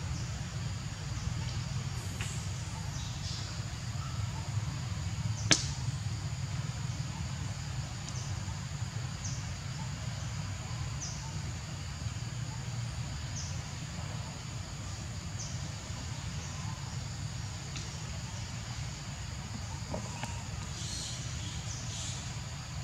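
Forest ambience: a steady high insect drone with faint regular ticks about every two seconds, over a low rumble. A single sharp click comes about five seconds in, and a few faint high chirps come near the start and again near the end.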